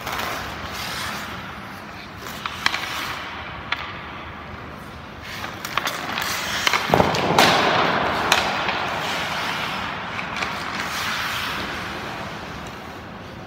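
Ice-hockey skates carving and scraping on the ice, broken by a few sharp clicks of stick and puck. A longer, louder skate scrape comes about seven seconds in.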